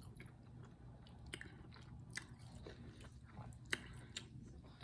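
A person chewing a mouthful of chitterlings, quietly, with a few sharp clicks scattered through, the loudest a little under four seconds in, over a low steady hum.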